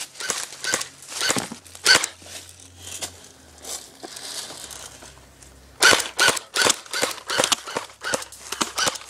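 A string of sharp snaps and crunches during an airsoft game in woodland: airsoft gun shots and feet on dry leaf litter. It goes quieter for a few seconds in the middle, then comes back as a quick run of about three a second.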